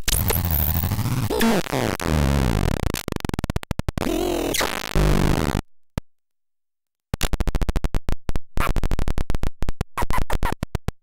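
Circuit-bent toy sound sampler glitching, its touch-contact bend point left open or half-bridged, giving feedback and glitches. Dense electronic noise with sweeping, warbling pitch runs for about five and a half seconds and cuts off dead. After about a second and a half of silence, rapid stuttering clicks start up.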